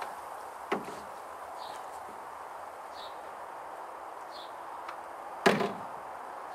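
Two sharp knocks, the second and louder one about five seconds after the first, over a steady faint background noise.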